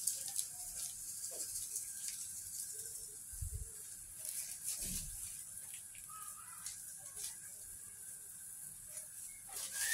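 Shrimp cooking in a buttery garlic sauce in a frying pan: a faint, steady sizzle with scattered small pops.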